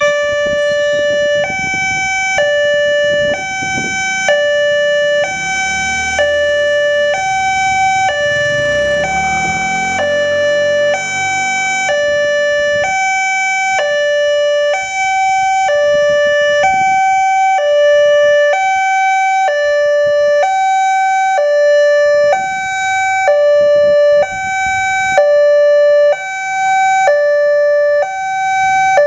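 Indonesian railway level-crossing alarm sounding: an electronic warning of two notes, a lower and a higher one, alternating about once a second. It switches on suddenly and signals that a train is approaching the crossing.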